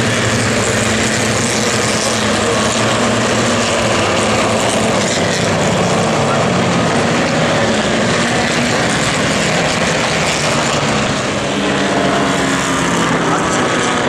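A pack of historic Formula Vee racing cars with VW-based engines running hard together as the field passes, many engine notes overlapping into one steady, dense drone. It dips slightly about three-quarters of the way through.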